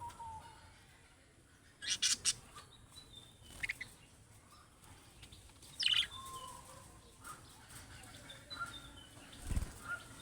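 Budgerigars chirping and warbling in short, scattered calls, with loud bursts of quick chirps about two seconds and six seconds in. A low thump comes near the end.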